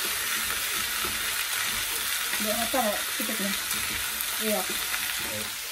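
Beef, onion, carrot and potato pieces sizzling as they fry in a nonstick pot, stirred and turned with a slotted plastic spatula that scrapes against the pan. The sizzle is a steady hiss.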